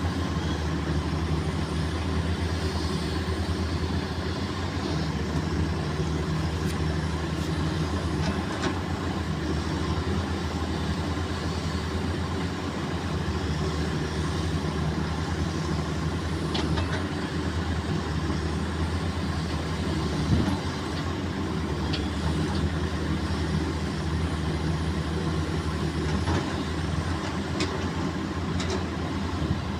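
Caterpillar excavator's diesel engine running steadily, with a few faint clicks scattered through.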